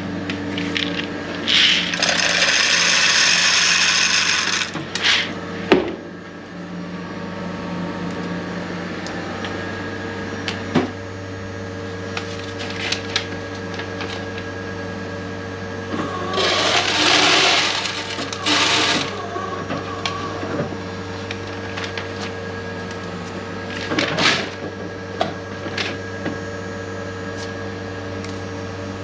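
Steady machinery hum with a few fixed tones, broken twice by a loud whirring burst lasting a few seconds, about two seconds in and again about sixteen seconds in, with scattered light knocks and clicks.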